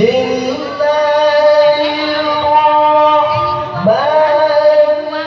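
A single voice reciting the Quran in the melodic, sung style of a qari. It holds one long, slightly ornamented note for about three seconds, then starts a new rising phrase about four seconds in.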